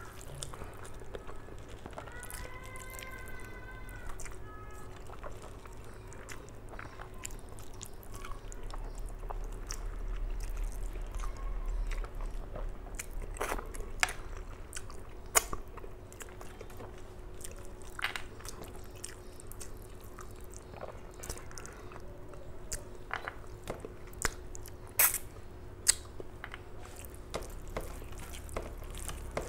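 Close-miked eating sounds: rice and mutton curry being kneaded by hand on a steel plate and chewed, wet and squishy, with scattered sharp clicks and a faint steady hum underneath. A short pitched sound comes about two seconds in.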